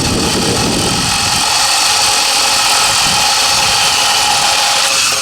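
Hart 20-volt brushed cordless drill running steadily under load while boring into wood, its motor giving a continuous whine.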